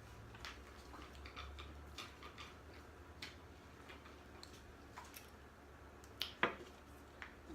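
Scattered small clicks and smacks of eating close to the microphone, with one louder click about six and a half seconds in.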